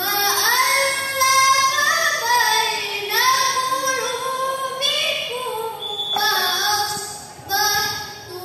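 A girl's voice chanting a melodic line into a microphone: long held notes with ornamented turns, in several phrases broken by short breaths.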